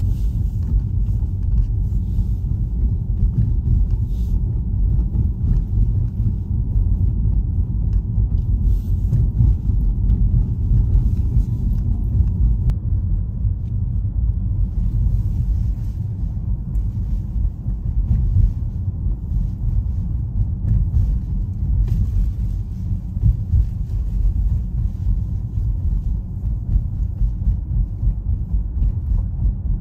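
Low road and engine rumble of a Mercedes-Benz GLE SUV driving, unbroken and jagged in level.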